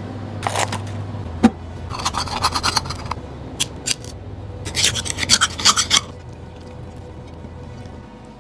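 A blade scraping inside a scallop shell as the scallop is shucked, in several short rasping bursts of quick strokes, over a low steady hum.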